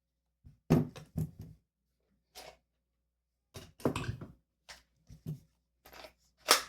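Tools and hard plastic parts being handled and set down: a string of separate knocks and clicks, the loudest a sharp knock near the end.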